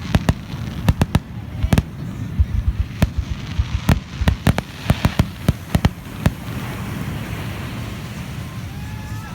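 Fireworks finale: a rapid barrage of sharp bangs, several a second, that stops about six seconds in, followed by a steady rushing noise.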